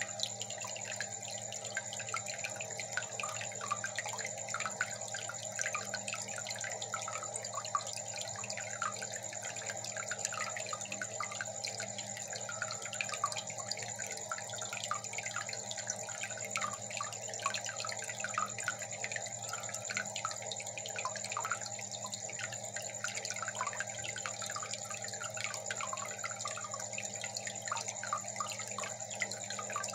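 Aquarium water bubbling and trickling steadily, with many small irregular bubble blips over a constant low hum.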